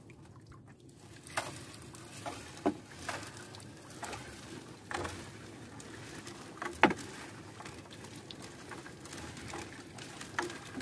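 Water pattering and dripping with scattered light knocks as a wet gill net is hauled in over a boat; the sharpest knock comes about seven seconds in.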